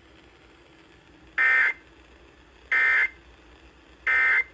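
Three short EAS SAME end-of-message data bursts, each a fraction of a second of buzzing two-tone digital chirping, spaced about 1.3 seconds apart. They signal the end of the emergency alert message.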